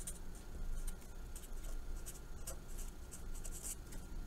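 Marker pen writing on paper: an irregular run of short, scratchy strokes as letters are written out.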